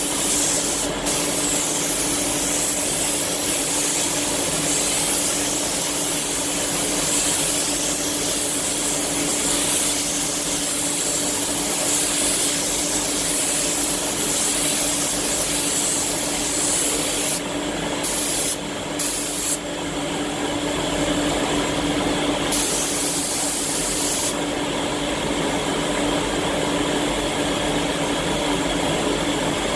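Iwata spray gun hissing with compressed air as clear coat is sprayed, the hiss cutting off briefly several times around two-thirds of the way through as the trigger is released between passes. A steady low hum runs underneath.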